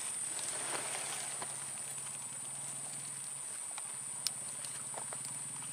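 Faint rustling and light ticks as grass and twigs are handled at the edge of a burrow hole, with one sharper click about four seconds in, over a steady high-pitched whine.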